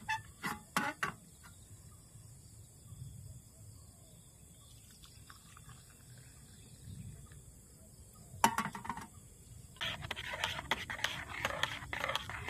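A few knocks of a small camping pot being handled, then about ten seconds in a metal spoon stirring briskly in a stainless steel mug, scraping and clinking against the sides.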